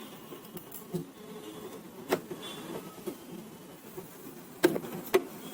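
Plastic printer casing and parts being handled, giving a few sharp clicks and knocks, the loudest two close together near the end, over a steady low buzzing in the background.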